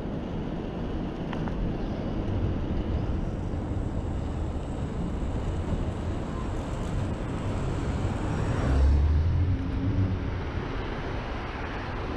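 Steady city traffic and wind noise heard from a moving bicycle, a low rumbling haze. It swells to its loudest about nine seconds in, as a vehicle passes close by.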